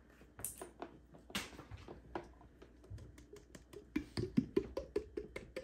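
Rapid wet clicks and squelches of slime being made: sticky glue slime stirred with a stick in a plastic tub and black acrylic paint squeezed from a plastic bottle, with a few squeakier squelches about four seconds in.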